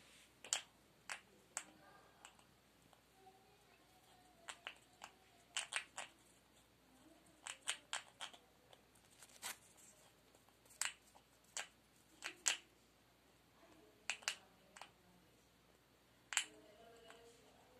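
Severe macaw working its beak on a crumpled white object, making irregular sharp clicks and snaps, sometimes several in quick succession and then a pause of a second or two.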